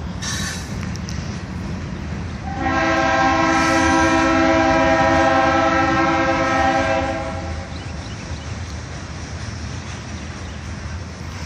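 Norfolk Southern freight locomotive's air horn sounding one long blast of several tones together, starting a couple of seconds in and lasting about five seconds, over the steady low rumble of the passing train.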